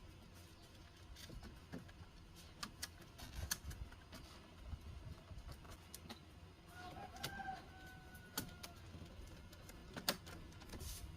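Faint scattered clicks and light taps of small hard parts being handled, with the sharpest click about ten seconds in. A faint drawn-out call lasting about two seconds sounds in the background about seven seconds in.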